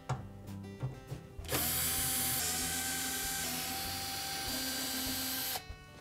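Cordless drill/driver with a #15 Torx bit backing out a screw from a dishwasher's inner door panel. A few short clicks come first, then the motor runs with a steady whine for about four seconds and stops suddenly.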